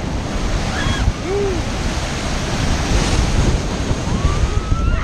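Big ocean surf breaking on the shore, a continuous rush that swells around the middle, with wind buffeting the microphone.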